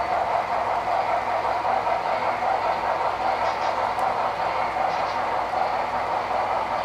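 HO-scale Broadway Limited Paragon 3 model of Texas & Pacific steam locomotive #610 running with its tank-car train. Its decoder's steam sound mixes with the wheels' noise on the track in a steady, unbroken run.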